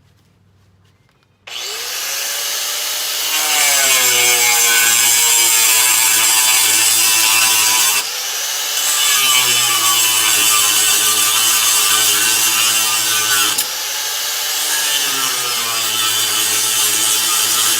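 Metabo WP11-125 11-amp angle grinder with a thin Type 27 slicer wheel, starting up about a second and a half in and cutting through black iron pipe, loud and continuous. Three cuts in a row: the motor's pitch drops as the wheel bites into each cut, with two brief lighter stretches between cuts.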